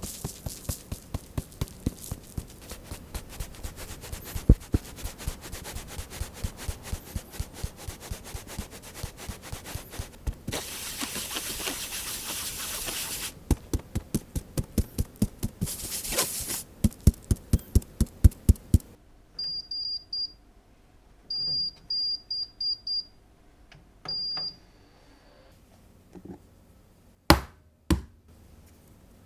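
Flour being sifted through a sieve that is tapped steadily, several quick knocks a second, with a few seconds of rustling as it is shaken. Then an oven's control panel gives short runs of high beeps as it is set to preheat, followed by two sharp clicks near the end.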